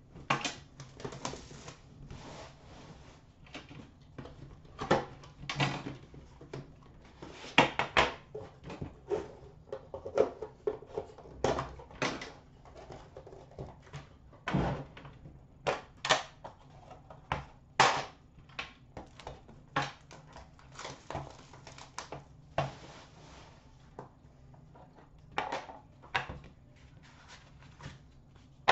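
Irregular clicks, taps and rustles of a hockey card tin being unwrapped and opened, its lid and inner cardboard box handled and set down.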